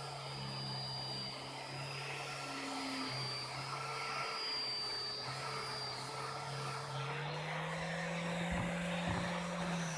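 Electric motor of a power tool running steadily with a continuous hum and whine. Its pitch rises slightly about seven seconds in and stays there.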